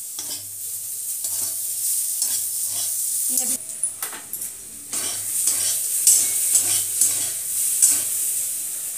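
A steel ladle scraping and knocking in a wok and clinking on a steel plate as food is served, over a steady sizzle from the pan on the flame. Some of the clinks ring briefly.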